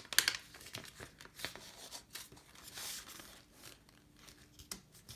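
A sheet of letter-sized paper rustling and crinkling as it is folded and creased by hand, with scattered soft ticks and a brief swish about three seconds in.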